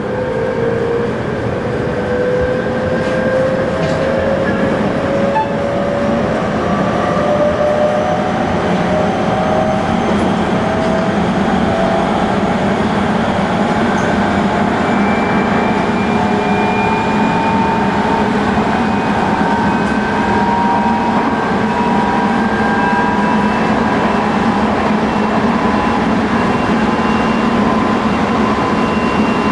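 Tobu 20050 series electric train heard from inside a motor car: its GTO-thyristor inverter and traction motors whine in several tones that climb slowly and steadily in pitch as the train gathers speed. Underneath runs the steady rumble of wheels on rail.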